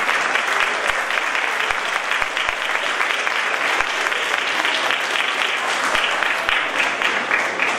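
Audience of students applauding, a steady wash of many hands clapping that runs on without a break.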